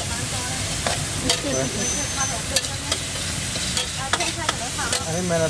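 Shellfish stir-frying in a steel wok with a steady sizzle. A metal spatula scrapes and clacks against the wok several times.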